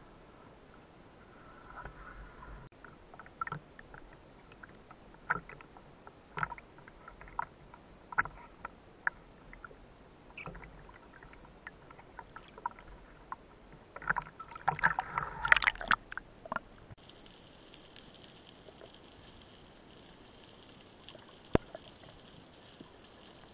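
Water splashing and sloshing in irregular strokes as a spearfisherman swims at the sea surface, with the loudest burst of splashing about fifteen seconds in as he dives under. After that the sound turns to a muffled, steady underwater background with a single sharp click near the end.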